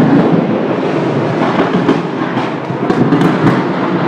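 Petrol station fire flaring up: a loud steady rush of burning, with many sharp pops and crackles through it.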